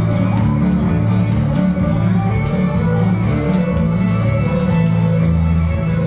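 Fiddle and guitar music for jigging, with a bass line that changes notes about once a second. Quick sharp taps run through it.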